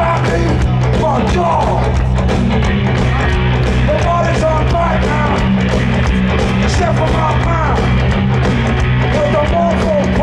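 Punk rock band playing live, heard from the crowd: electric guitars, bass and drums with a lead vocal over them.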